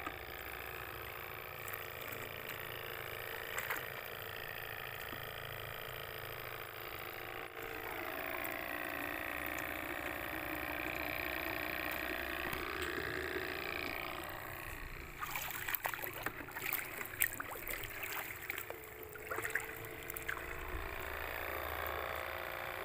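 Shallow seawater sloshing and splashing as hands work a mesh shrimp trap, over a steady hum. A run of splashes and knocks comes between about 15 and 20 seconds in.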